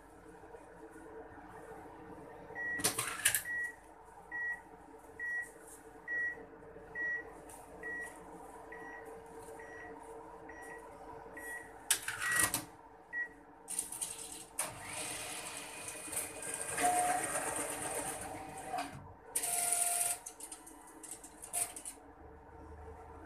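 A bank cash-deposit ATM beeps about once a second, with a loud mechanical clatter from its cash slot near the start and again after the beeps. It then whirs for several seconds as its note mechanism draws in and counts a stack of banknotes, with a second shorter whir near the end.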